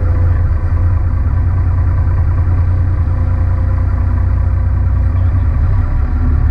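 Fishing boat's engine idling steadily, a low, even hum.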